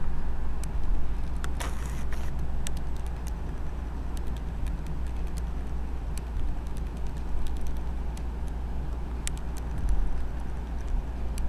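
Steady low rumble of room noise picked up by a compact camera's built-in microphone, with scattered light clicks and ticks, a short cluster of them about two seconds in.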